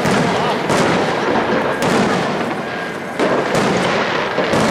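Aerial firework shells bursting in a loud display: several sharp bangs about a second apart over a constant din.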